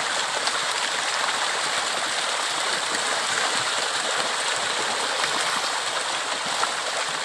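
A mass of tilapia splashing and thrashing at the pond surface as they feed on scattered pellets, making a continuous churning, spattering water noise.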